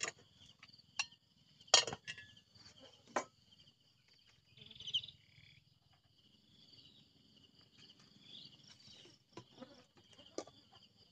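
Steady high chirring of insects, with a few sharp knocks and clicks on top, the loudest about two seconds in.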